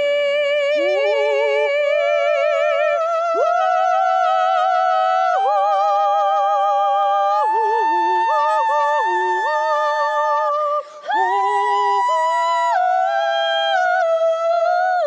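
Wordless high singing in two or more voices at once, holding long notes with vibrato and sliding up into new notes, layered over one another. The sound drops out briefly about eleven seconds in, then the voices come back.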